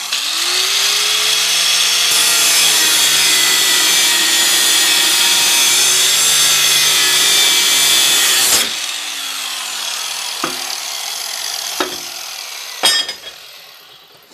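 Angle grinder with an abrasive cut-off wheel cutting through a steel lawnmower blade at its mount, its motor pitch sagging under load. About eight and a half seconds in, the cut ends and the grinder winds down and fades out, with a few sharp knocks near the end.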